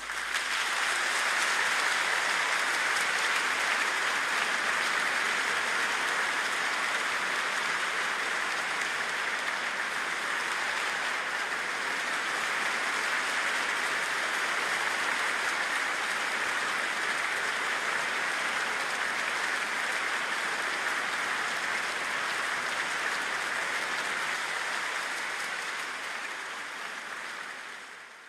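Large concert audience applauding steadily, fading out near the end.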